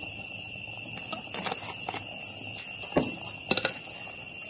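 A metal spoon stirring and knocking against a clay cooking pot, a handful of short clicks, over a steady high-pitched whine.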